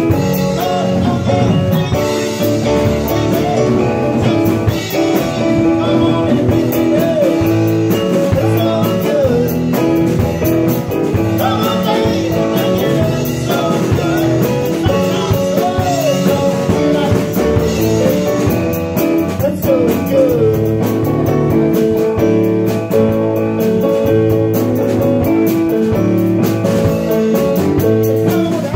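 Live rock band playing: a male singer into a microphone over electric bass, keyboards and drum kit.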